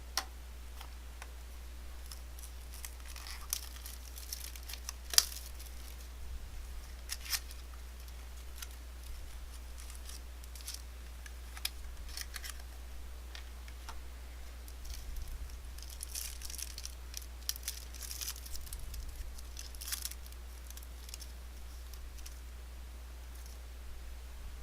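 Trading card packaging being opened and handled by hand: scattered tearing and crinkling rustles and light clicks as the wrappers and cards are worked through, over a steady low hum.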